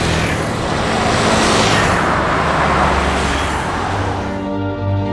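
Road traffic: SUVs and motorbikes passing on a highway, the noise swelling as a vehicle goes by about two seconds in. Background music starts near the end.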